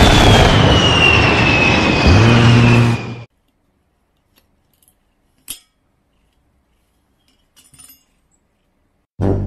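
A-10 Warthog's GAU-8 rotary cannon firing, a low buzzing burst at the start and another about two seconds in, over jet noise with a whine that falls in pitch; it cuts off suddenly about three seconds in. Then near silence with one sharp click, and comic theme music starts just before the end.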